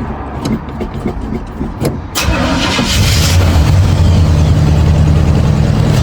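1976 Chevy C20's V8 engine cranking on the starter for about two seconds, then catching with a sudden burst and settling into a steady idle: a quick first start on freshly fitted spark plugs.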